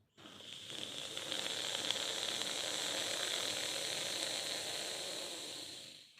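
A long hissing in-breath drawn through the mouth with the tongue folded back against the palate, the cooling inhalation of sheetkari pranayama. The hiss builds over the first second, holds steady for about five seconds and fades out at the end.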